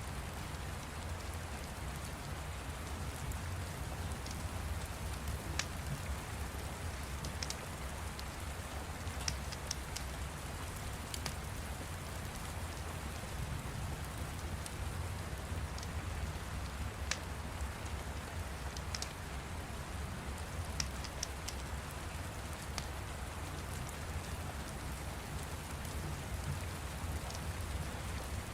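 Steady rain falling, with sharp crackles and pops from a wood fire at irregular intervals.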